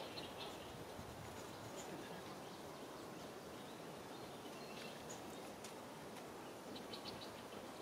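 Outdoor ambience: a steady hiss and rumble of background noise with faint, short high chirps scattered through it, and a quick run of small ticks about seven seconds in.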